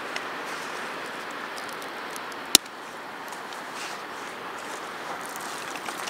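Dry twigs being handled and snapped while a fire is laid in sand, with one sharp crack about two and a half seconds in, over a steady rush of ocean surf.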